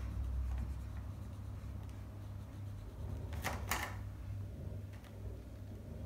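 Marker pen drawing on a paper plate: two short scratchy strokes about three and a half seconds in, over a steady low hum.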